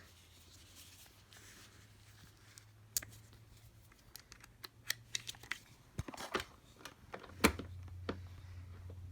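Scattered light clicks and taps of a small cordless screwdriver and its bit being handled and fitted to chair screws, the loudest near the end, over a faint low steady hum.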